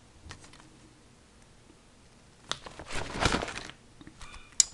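Plastic card-sleeve pages of a binder crinkling as a page is turned, about two and a half seconds in. A few light ticks and one sharp click follow near the end.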